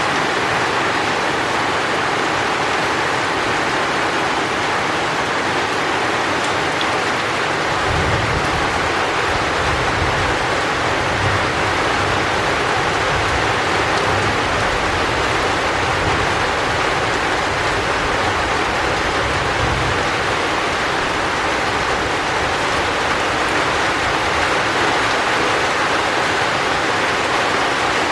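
Steady heavy rain, an even hiss of falling water. A low rumble of distant thunder rolls under it from about 8 to 20 seconds in.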